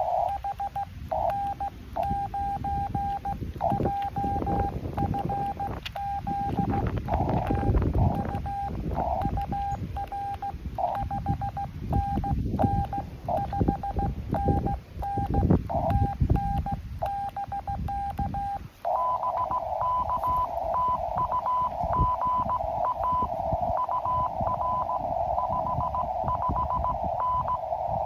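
Morse code on an amateur radio: for about the first two-thirds, a clean keyed tone is sent as dots and dashes over clicks and knocks. Then about 19 seconds in, the sound changes to a slightly higher keyed Morse tone received through the radio's narrow CW filter, with band hiss around it.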